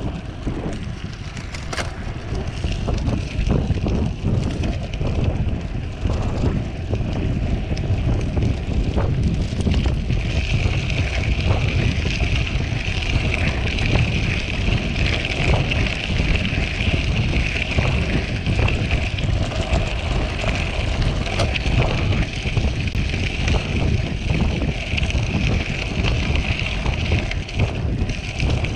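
Wind buffeting the microphone over the tyres of a Trek 1400 aluminium road bike rolling fast on a gravel track, with many small clicks and rattles from the stones and the bike. A steadier high hiss joins about ten seconds in.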